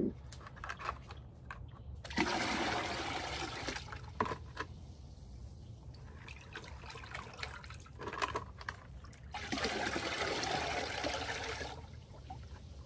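Water running into a bucket in two spells of about two seconds each, filling it to dilute horticultural molasses, with a few small knocks in between.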